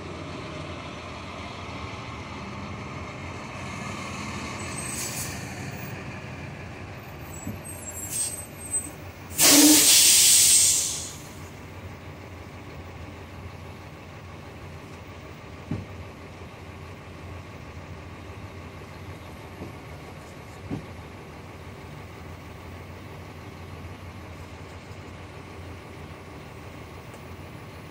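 Portable line boring machine running steadily, with a boring bar cutting oversize in a Cat 980G loader arm bore. About nine and a half seconds in, a loud hiss cuts in for about a second and a half.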